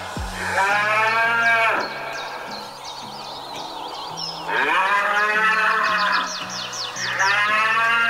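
Cattle mooing: three long, drawn-out moos, each rising and falling in pitch, about a second and a half long. The last one starts near the end.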